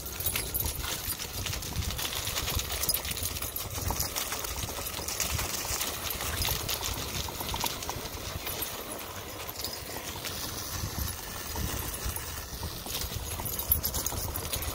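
Ride noise from a Gotway MSX electric unicycle rolling over bumpy grass: a steady wind rumble on the microphone with irregular clicks and knocks.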